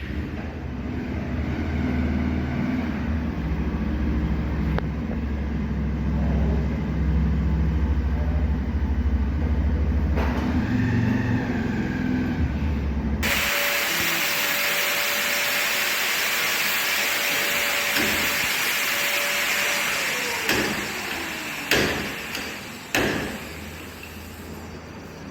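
A motorcycle engine running steadily for about thirteen seconds. It then cuts abruptly to a loud hiss with a thin steady whine, which winds down about seven seconds later, followed by a couple of sharp knocks.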